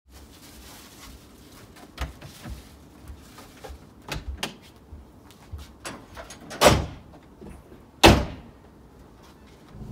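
Knocks and clunks of gear being packed into the back of a Mitsubishi ute, then two loud slams about a second and a half apart as the tailgate and the canopy's rear door are shut.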